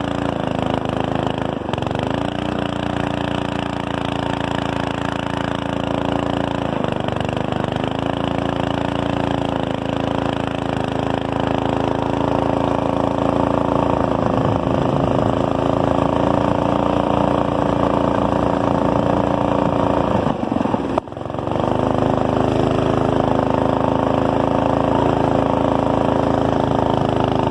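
Manco go-kart's 5 hp flathead single-cylinder Briggs & Stratton engine running hard at a steady speed under way, dipping in speed now and then. It drives through a torque-converter belt that is worn out. About three-quarters of the way through the sound cuts out for a moment, then resumes.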